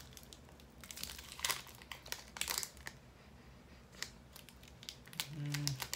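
Kit Kat's plastic candy-bar wrapper crinkling in irregular clusters of crackles as it is handled and pulled open.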